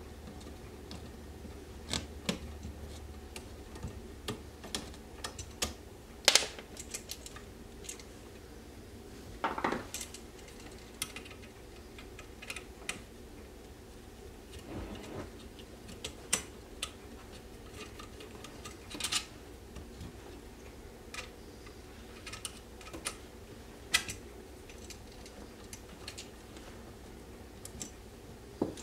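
Irregular small metallic clicks and clinks, with a few louder knocks scattered through, as an electrical outlet and its wires are handled and worked loose from a wall box.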